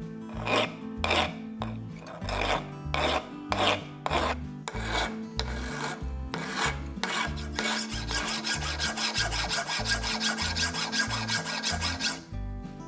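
A flat hand file rasping across a small knife blade of leaf-spring steel, shaping it by hand. For several seconds it goes in separate strokes, about two a second. Then, about eight seconds in, it turns into a faster, continuous rasping that stops abruptly near the end.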